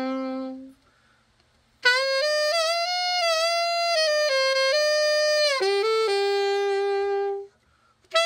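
Selmer Mark VI alto saxophone (50,000-series) played solo during a play-test after a complete overhaul: a held note fades out, then after a short breath a slow melodic phrase moves through several notes and settles on a long held lower note, and a new phrase begins near the end.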